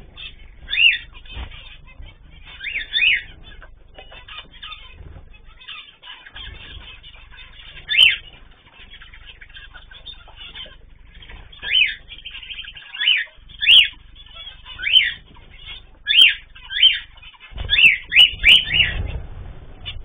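Aviary birds calling: short sharp calls, singly or in pairs, repeating every second or so and crowding together near the end, with low fluttering of wings near the end.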